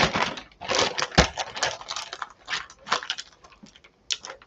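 Plastic zip-lock freezer bag holding raw chicken pieces crinkling as it is handled, with crackles that thin out over the first three seconds. About four seconds in come a few sharp clicks as the bag's zip seal is pressed shut.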